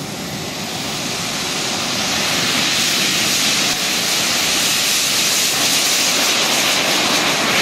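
RC model jet's engine running with a steady hiss on its takeoff roll, growing steadily louder as the jet gathers speed.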